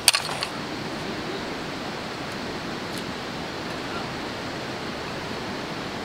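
A few quick clinks of a steel bowl at the start, then the steady rushing of a river flowing over rocks.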